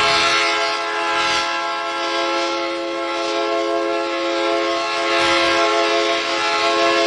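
Alarm siren sounding one continuous horn-like chord at a level pitch, without rising or falling, over a rushing hiss.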